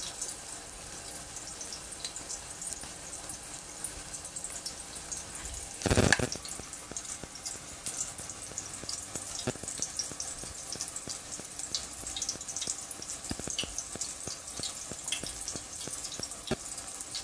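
Hot oil sizzling and crackling steadily around a beef seekh kabab shallow-frying in a pan over a medium flame, with a brief louder rush of noise about six seconds in.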